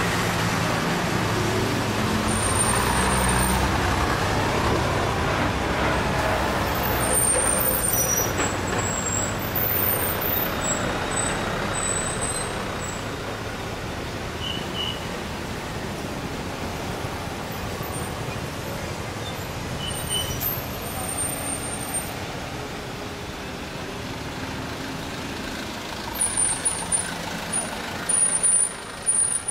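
Heavy vehicles, a bus and light trucks, working their diesel engines hard through a steep mountain hairpin close by, with steady engine and tyre noise. There are brief high squeaks about a quarter of the way in, and a few sharp loud bursts near the end.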